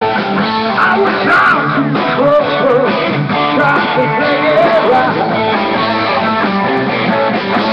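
Live rock band playing: electric guitars and drums under a male singer, heard through a phone's microphone.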